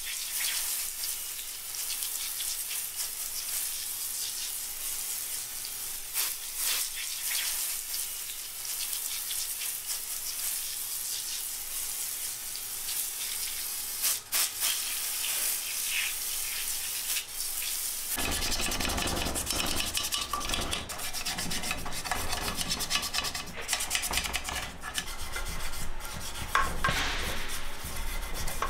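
A spray jet washing degreaser off aluminium engine parts, an oil pan and a timing cover, as a steady hiss. About 18 seconds in it gives way to a brush scrubbing the wet parts, with rough scraping and small knocks against the metal.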